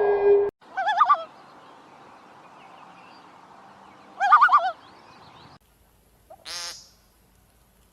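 Bird calls from several short clips: a falling whistled note ends just after the start, then two short, rapidly warbling calls come about three seconds apart, and a brief rasping call follows near the end.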